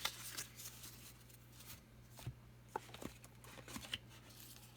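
Faint handling of trading cards and their wrappers: scattered light clicks and soft rustles, over a steady low hum.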